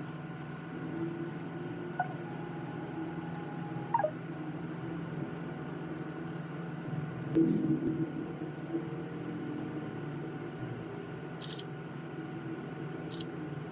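Small taps and clicks of smartphone parts and a precision screwdriver handled on a work mat, over a steady low hum. The loudest moment is a short cluster of knocks about halfway through, with two brief sharp clicks near the end.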